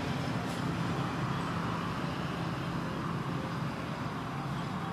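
Steady outdoor background rumble and hiss with a low hum underneath, and one faint click about half a second in.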